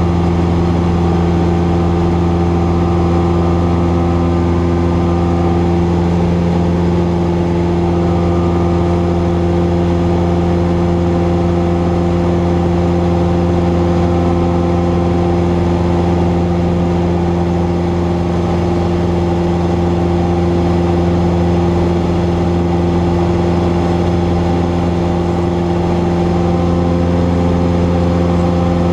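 Cessna 172's piston engine and propeller running steadily, a constant loud drone with no change in pitch.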